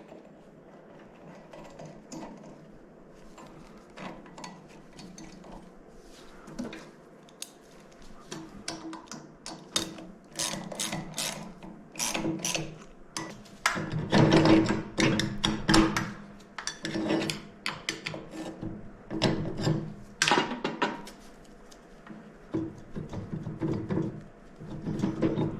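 Hand tools and loose metal engine parts clattering, clicking and scraping during disassembly of a small engine. The noises come in irregular bursts, sparse at first and busier from about a third of the way in, loudest around the middle.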